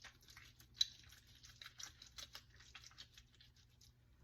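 Raw chicken pieces being scrubbed by hand with a lemon half in a bowl of vinegar and lemon juice: faint, irregular wet scratching and small clicks, with one sharper click about a second in, dying away near the end.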